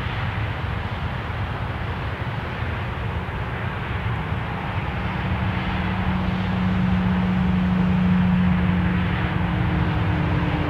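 A distant engine's steady drone, growing louder in the second half, over a constant rushing hiss.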